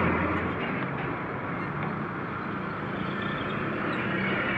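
Mitsubishi Fuso diesel truck engine running as the truck creeps forward, growing gradually louder toward the end, with small motorbikes passing.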